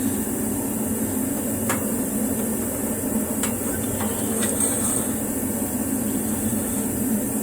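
A steady background drone with a few faint, light clicks of metal parts, at about two, three and a half, and four and a half seconds in, as a rear suspension control arm is worked up into its mounting bracket.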